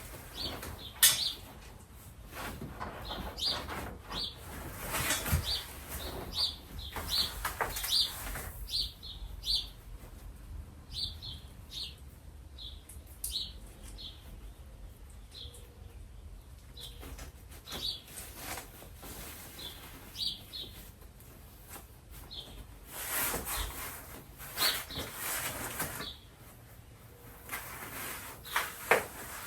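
A small bird chirping repeatedly in short, high notes, over occasional rustling and knocking as plastic prop parts are handled.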